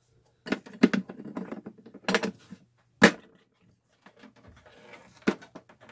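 A few clicks and knocks of wires and plugs being handled and fitted, with the sharpest knock about three seconds in.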